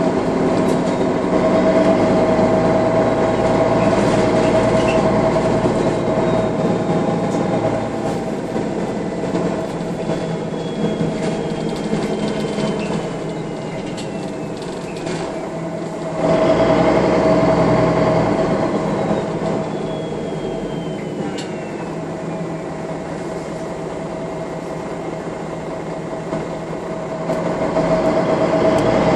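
MAN NL 313 low-floor city bus heard from inside while driving: engine and drivetrain running with a steady drone and a faint high whine that falls in pitch. The bus grows suddenly louder about halfway through, then eases off, and pulls harder again near the end.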